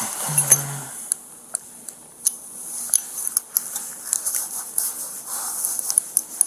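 Handcuffs being unlocked and taken off: a run of small metallic clicks and rattles, with a brief low buzz near the start.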